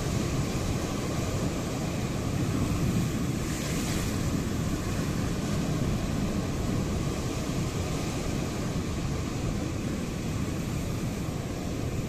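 Sea waves hitting the coast, a continuous rushing surf with its weight in the low end, swelling briefly about three to four seconds in.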